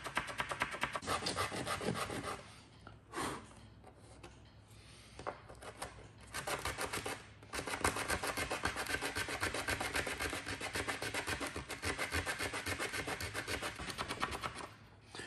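80-grit sandpaper on a small wooden block scrubbed rapidly back and forth over the wood of a pinball playfield, cleaning burrs out of drilled ramp recesses. Quick strokes, about five a second, stop for a few seconds about two and a half seconds in, apart from two short scrubs, then resume and run steadily until near the end.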